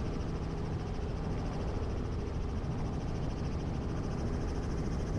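Running helicopter's engine and rotor noise heard from inside the cockpit, a steady hum and hiss with no change.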